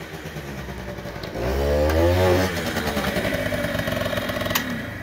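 Piaggio Quartz two-stroke scooter engine running, revving up hard about a second and a half in and then easing back to a steady note. It is pulling strongly now that the cracked air-filter-box seal that let in extra air has been replaced.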